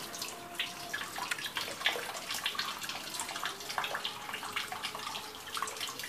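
Water running and splashing in a washing machine's wash tub, with small irregular splashes and drips as hands work in the water.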